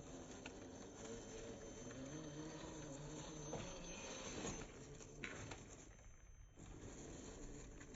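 1/10-scale RC crawler's electric motor and gearbox whining, the pitch rising and falling as the throttle changes, with a few small clicks and knocks.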